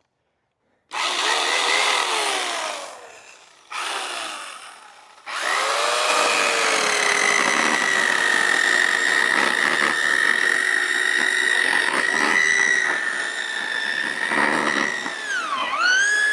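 Ferrex corded electric chainsaw motor whining up, then spinning down, twice in the first few seconds. It then runs steadily for about ten seconds at a fixed pitch while cutting through wood without binding. Near the end a wavering, warbling tone comes in.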